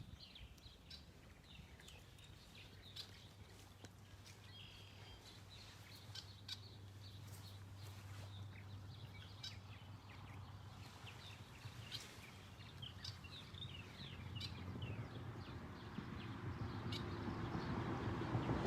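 Faint outdoor ambience: many short, high chirps, with scattered clicks, over a low steady hum that swells near the end.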